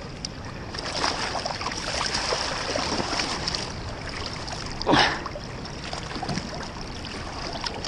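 River water swirling and splashing around a gloved hand groping in the current for a large hooked wels catfish at the bank, over the steady rush of the river, with one louder burst about five seconds in.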